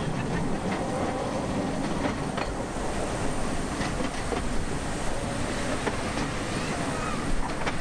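Passenger carriages of the 15-inch-gauge Liliputbahn miniature railway running along the track: a steady rumble of wheels on rail with scattered clicks as they pass over rail joints.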